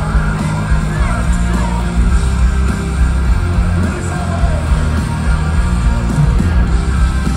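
Metal band playing live at high volume: distorted guitars, heavy bass and drums, with vocals over the top.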